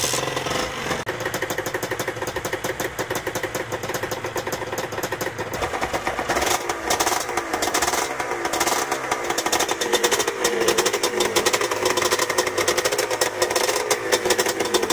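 Kawasaki KR-1S 249 cc two-stroke parallel-twin engine, just fired on the kickstart for its first start after six months laid up, running with a rapid two-stroke crackle and growing louder from about six seconds in.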